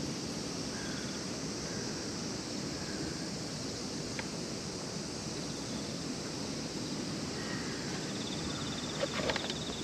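Steady outdoor wind noise with a low rush like distant surf. A faint high trill and a few light clicks come near the end.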